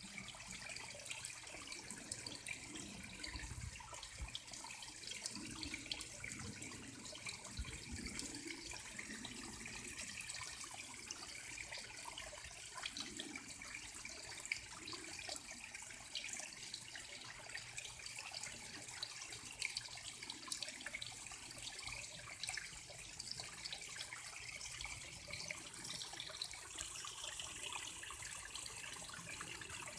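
Water running steadily, a continuous light splashing trickle.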